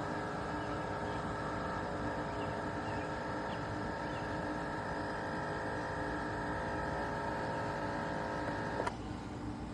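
Single-serve coffee maker running with a steady motor-and-pump hum, which cuts off abruptly near the end, leaving only a faint low background.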